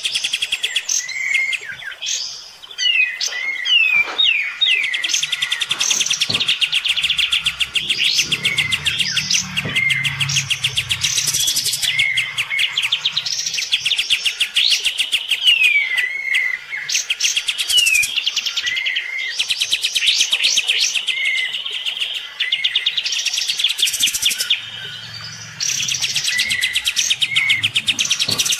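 Kapas tembak (cream-striped bulbul) singing loudly and almost without pause, in a challenge song: long fast rattling trills broken by short rising whistled notes.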